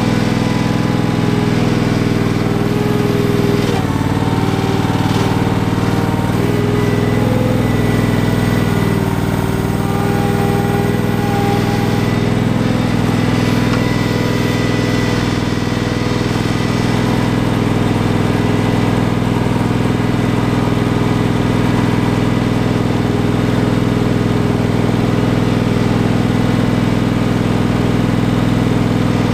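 Engine of an Ingersoll 7020L garden tractor running steadily as the tractor is driven, with a higher whine that shifts in pitch during roughly the first twelve seconds.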